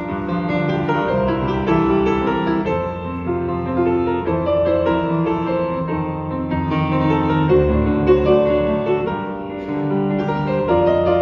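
Yamaha grand piano played solo, a continuous flow of notes over held bass notes.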